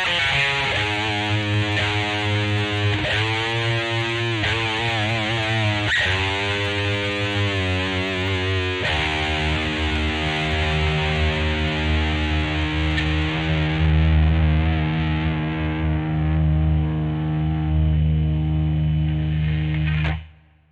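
Greco EG-550 electric guitar played through a Peavey Vypyr VIP 2 modelling amp with heavy distortion. Notes with wide vibrato and bends give way to a chord left ringing for about eleven seconds, which cuts off sharply near the end.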